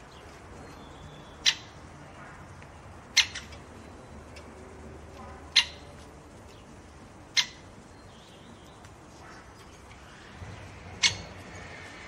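Great spotted woodpecker at a hanging seed feeder giving sharp single clicks, five of them one to four seconds apart.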